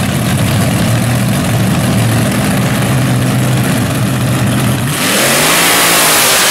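Front-engine nostalgia dragster's V8 running steadily at a fast idle, then about five seconds in it revs hard and the note rises and falls as the car does its burnout, rear tyres spinning and smoking with a loud rushing noise.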